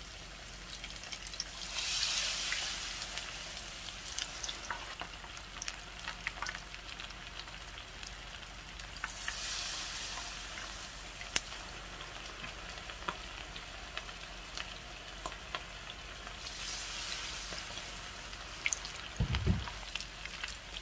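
Battered shrimp deep-frying in hot oil at about 170 °C, a steady sizzle with scattered crackling pops. The sizzle swells three times, about two, nine and seventeen seconds in, as battered shrimp are dropped into the oil, and there is a brief low thump near the end.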